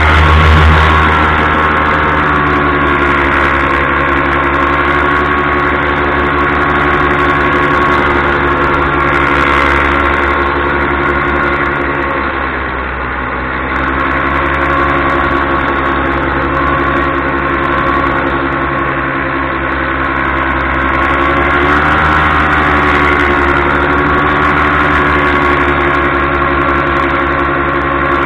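Paramotor engine and propeller running in flight. The pitch and loudness drop briefly as the throttle eases off about halfway through, then rise again as power comes back on.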